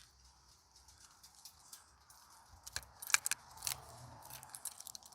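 Quiet background with a few faint, short clicks and rustles about three seconds in.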